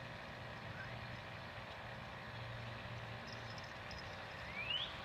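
Quiet outdoor background with a steady low rumble, and a single rising bird whistle near the end.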